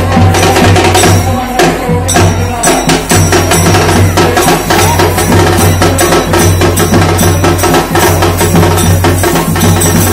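Lezim, wooden dance sticks with metal jingles, clashing in steady rhythm, together with a dhol drum and a round hand drum beating out a lezim rhythm.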